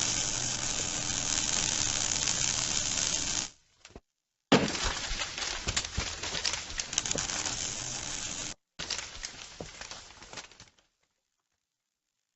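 Breaking and clattering of burnt debris and glass during fire overhaul, with many sharp knocks and clinks over a noisy wash. It comes in three stretches that cut off abruptly, then stops a little over ten seconds in.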